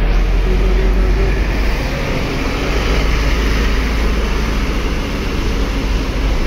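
Diesel engine of a large coach bus running as it drives slowly past at close range, a loud, steady low rumble.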